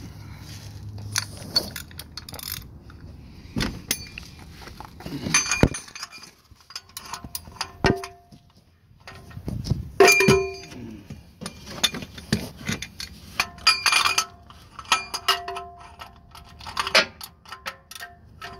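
Metal hand tools clinking and clattering, several knocks ringing on briefly, as a wrench and socket are handled and fitted onto a canister-style oil filter housing to loosen it.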